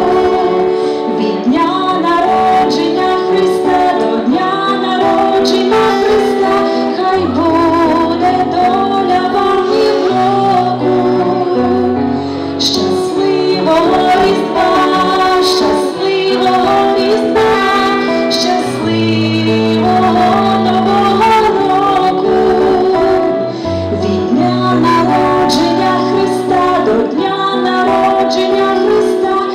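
A woman singing a Ukrainian Christmas song into a microphone, her voice wavering on held notes, over an instrumental accompaniment with long, low bass notes.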